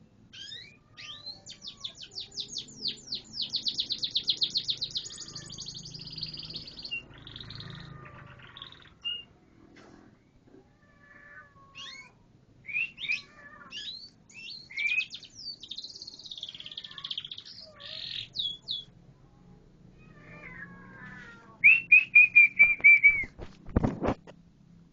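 Canary singing: rapid trills and chirping phrases, ending in a run of loud, clear whistled notes, with a brief thump just after them.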